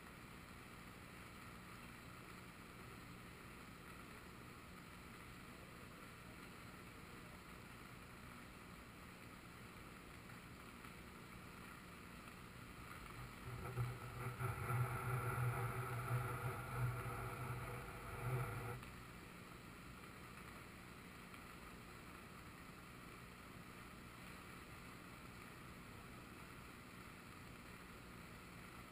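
Faint, steady rush of a river in full flood, heard from just above the fast brown current. About halfway through, a louder low hum with steady higher tones swells up for about five seconds and cuts off suddenly.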